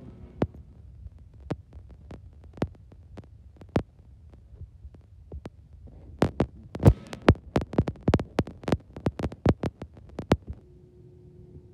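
Irregular sharp clicks and knocks over a low rumble, coming thick and fast for several seconds after the midpoint. Near the end they stop and a steady low hum takes over.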